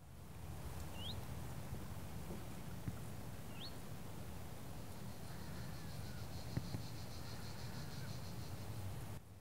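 Countryside ambience: a steady low rumble with a bird giving two short rising chirps, and a faint high insect trill in the second half.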